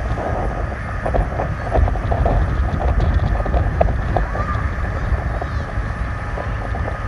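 Wind buffeting the microphone over breaking surf, with the steady hum of the RNLI lifeboat launch tractor running in the shallows and a few scattered ticks.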